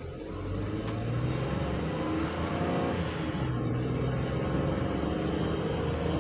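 Ford Transit van driving, with steady engine and road noise and the engine note climbing slowly as it accelerates.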